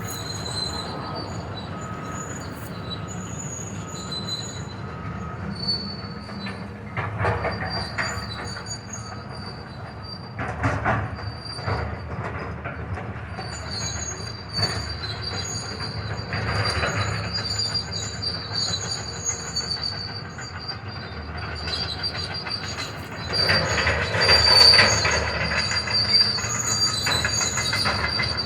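Heavy demolition machinery running with a steady low rumble while metal squeals in high, on-and-off tones. Debris crashes and crunches several times; the longest and loudest comes near the end.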